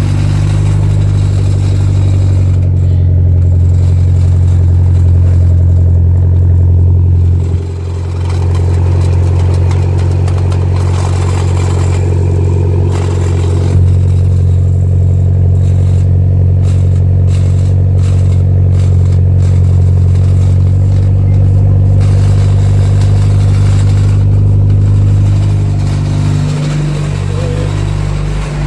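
Mitsubishi Lancer Evolution X's turbocharged 2.0-litre four-cylinder idling steadily through a Megan Racing cat-back exhaust, with a brief dip in level about seven seconds in. The owner says the end of the exhaust is coming loose.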